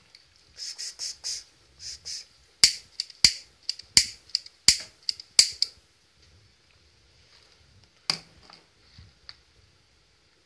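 A quick run of sharp, loud clicks, about ten in three seconds, then a single click a couple of seconds later.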